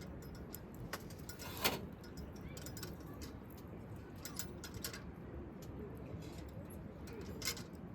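Campfire crackling: irregular sharp pops and ticks over a low steady rumble, with a louder pop about two seconds in and another near the end.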